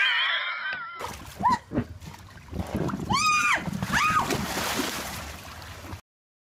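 Water splashing and sloshing in a swimming pool as people tumble off an inflatable flamingo float, with three short high yells. A brief cry comes just before, and the sound cuts off abruptly about six seconds in.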